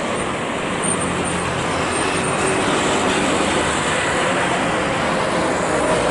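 Steady rushing outdoor traffic noise with jet engines at taxi idle blended in, no single event standing out.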